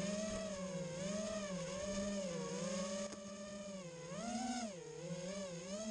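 FPV quadcopter's motors and propellers whining, the pitch rising and falling about once a second with the throttle and climbing highest about four seconds in.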